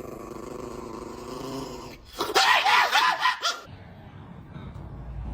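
A dog vocalizing: a low, wavering whine, then about two seconds in a louder burst of high cries that rise and fall, lasting over a second.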